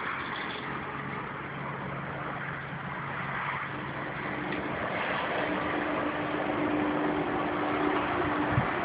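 A steady engine hum over a background rush, slowly growing louder.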